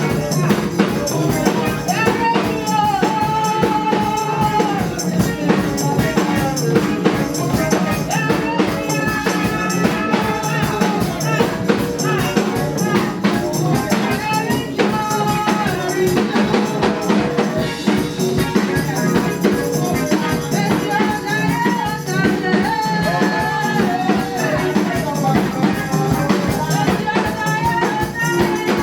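Gospel praise music: voices singing over tambourine and drums keeping a steady beat.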